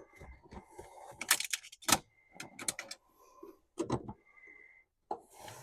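Irregular sharp clicks and knocks of parts being handled and fitted, the loudest two close together about a second and a half in, with a couple of faint brief squeaks.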